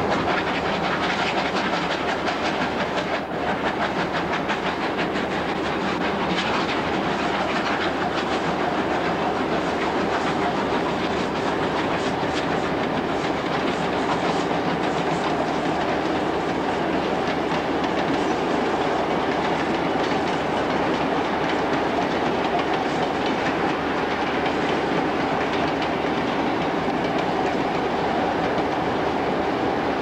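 Victorian Railways R-class 4-6-4 steam locomotive R766 working its train past: a steady running noise from the engine and carriages, with a fast, regular beat that is plainest in the first half.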